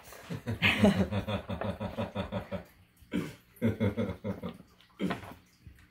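A cat eating wet food mashed into a plastic slow-feeder bowl: quick, rhythmic wet smacking and chewing, steady for the first couple of seconds and then in short bursts with pauses between.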